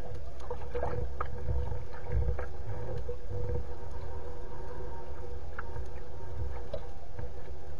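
Wind and waves on open lake water: a steady, uneven low rumble with water lapping against a floating reed nest platform and a few faint ticks, over a faint steady hum.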